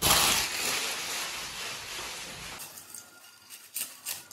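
Broth boiling in a steel pot under a heap of dry egg noodles, a hissing noise that starts suddenly and fades over about two and a half seconds, then a few clicks of a wooden spatula against the pot near the end.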